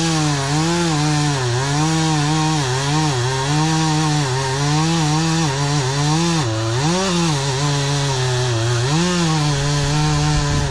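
Chainsaw cutting into a pine tree, its engine running near full throttle and its pitch repeatedly dipping and recovering as the chain bites into the wood; near the end the pitch holds steady.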